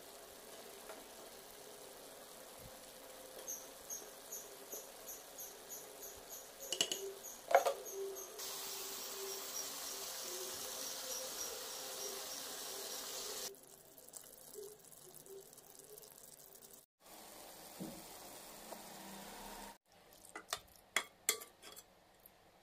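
Broccoli and mushrooms frying in a pan, a steady sizzle with stirring and a loud scrape about seven seconds in. A high chirping of about two ticks a second runs through the first part, and several sharp clinks come near the end.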